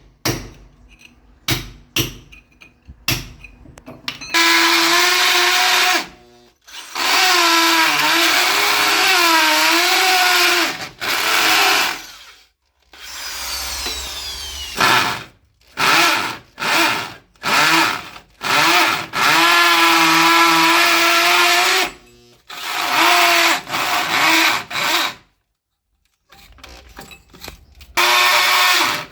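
A few sharp hammer strikes, then an electric drill boring into concrete. It runs in repeated bursts, starting and stopping, and its whine dips and wavers as it bites under load.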